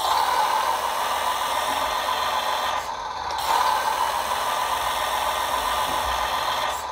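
Hydraulic system of a radio-controlled Palfinger loading-crane truck running steadily as its stabiliser legs are driven down to the ground, easing off briefly about three seconds in.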